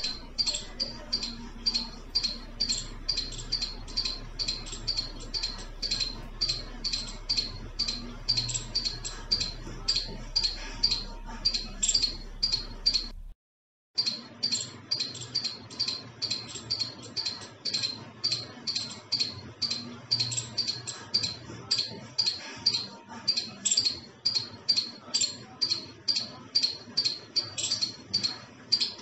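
Palm squirrel giving its repeated high-pitched chirping call, about two sharp chirps a second, breaking off for a moment about halfway.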